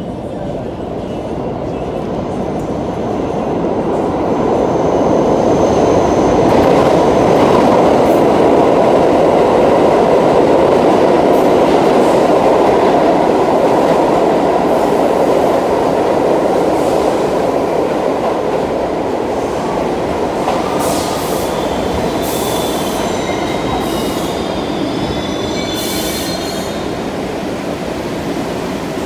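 R62A subway train on the 1 line pulling into an underground station, a loud rumble of wheels on rail that builds over the first few seconds and then eases as the train slows. High-pitched squeals break in during the second half.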